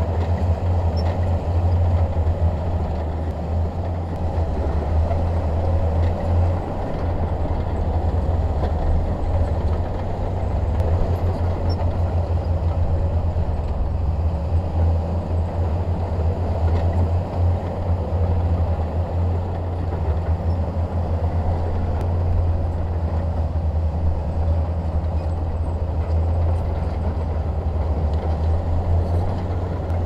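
Heavy diesel engine of earthmoving machinery running steadily with a deep, even drone.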